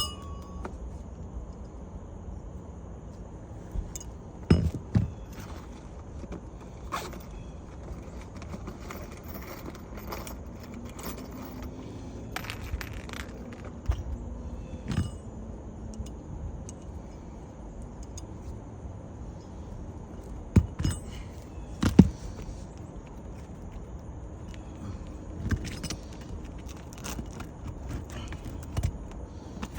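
Scattered knocks, taps, clinks and scrapes of hand tools and asphalt shingles being worked during a shingle repair, the sharpest knocks about four to five seconds in and again around twenty-one to twenty-two seconds.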